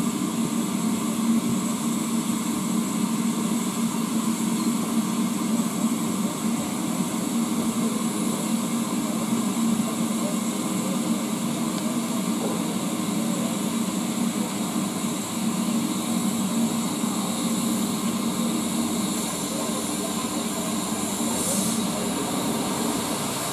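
BR Standard Class 4MT 4-6-0 steam locomotive 75078 standing with steam escaping, a steady hiss of blowing-off steam.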